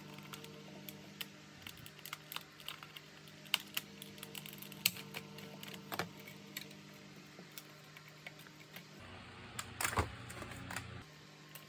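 Irregular light clicks and taps of small parts and tools being handled while a cordless vacuum cleaner is taken apart or put back together, over a faint steady hum.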